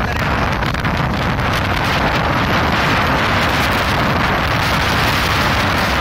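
Heavy sandstorm wind buffeting the microphone: a loud, steady rush of noise.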